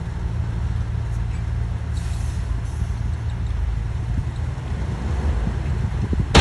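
Heavy diesel earthmoving machinery running steadily with a low drone, with a couple of brief faint hisses and a sharp clack right at the end.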